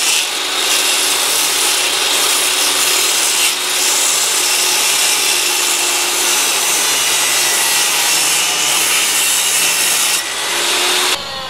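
Small table saw running and cutting wood freehand, a loud steady whine of blade and motor throughout. The sound drops off sharply about eleven seconds in.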